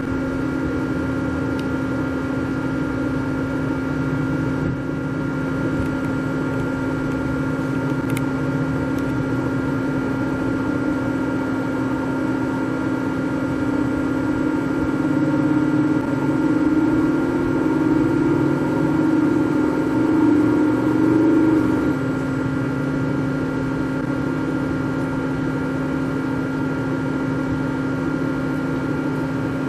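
Hitachi Seiki Hitec-Turn 20S II CNC lathe running under power: a steady machine hum with a few steady whining tones. About halfway through it grows louder with an added higher hum for several seconds, then settles back to the steady level.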